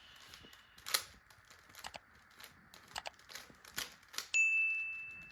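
Rubik's cube being turned: scattered plastic clicks and clacks. About four seconds in, a single high ding rings out and fades over about a second.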